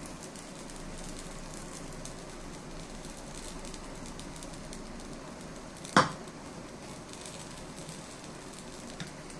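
Faint steady sizzle of bread toasting in ghee in a non-stick pan on low flame, with one sharp knock about six seconds in and a small click near the end.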